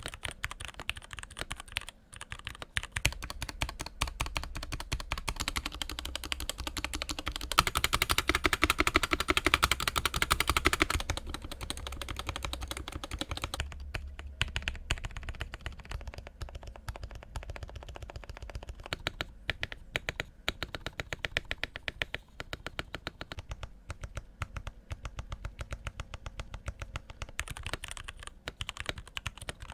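Typing on a Keychron K6 mechanical keyboard with Gateron Yellow linear switches, tuned stock stabilizers and a tape mod: a rapid, steady run of keystrokes. It gets faster and louder for a few seconds about a quarter of the way in.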